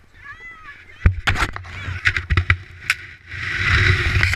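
A brief high squeal, then sharp knocks and clatter against the camera from about a second in, and a loud rush of snow scraping over it near the end as the snowboarder tumbles in the snow.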